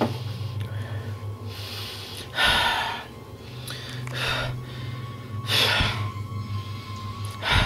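A person breathing heavily: four loud breaths, a second and a half or two apart, the first the loudest. Under them runs a steady low droning hum.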